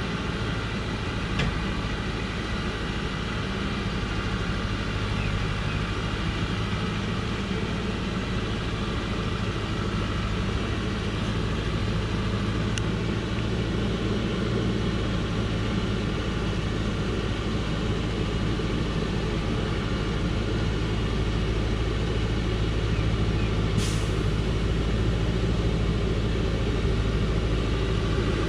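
Diesel engine of a loaded Dongfeng logging truck pulling steadily uphill under load, slowly growing louder as the truck comes closer. A brief hiss sounds near the end.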